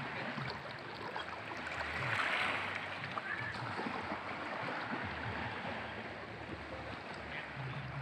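Small sea waves lapping and washing against shoreline rocks as a steady hiss, swelling briefly about two seconds in.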